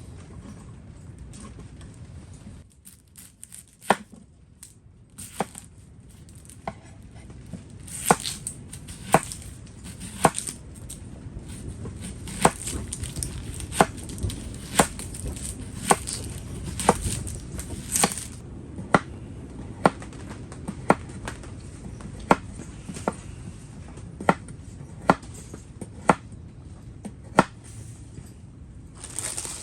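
Knife chopping vegetables and meat on a cutting board: sharp knocks, a few scattered at first, then a steady run of about one cut a second, over a low steady background noise.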